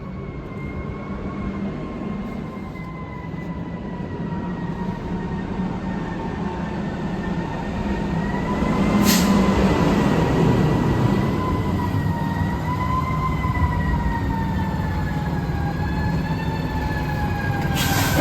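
Fire apparatus arriving: a heavy diesel engine rumble grows louder toward the middle, under a siren held on a steady tone that wavers slightly and slides lower near the end. A brief sharp burst of noise comes about halfway through.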